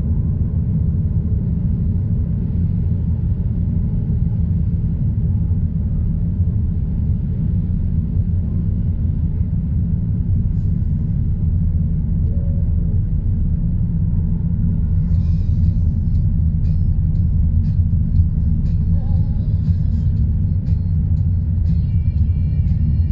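A car driving at steady speed, heard from inside the cabin: an even, low rumble of engine and tyres on the road. In the last third, scattered light clicks and ticks join it.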